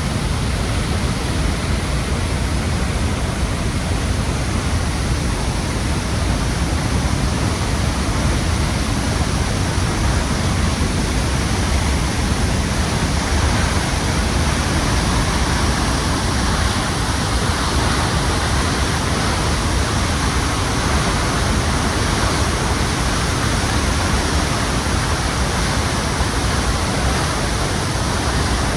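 Falls of Foyers waterfall in spate after heavy rain: a loud, steady roar of falling water with a deep rumble underneath.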